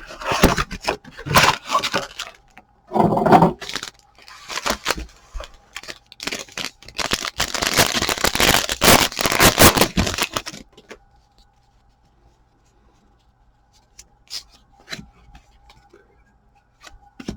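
Trading card packaging being ripped open: paper and foil tearing and crinkling in a run of ragged rips for about ten seconds, then only a few faint clicks.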